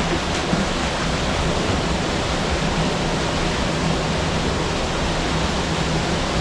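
Steady rushing of falling water, an even unbroken roar.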